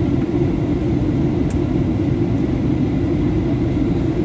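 Steady rumble of a Boeing 737's engines and airflow heard inside the passenger cabin, with no rise or fall in pitch.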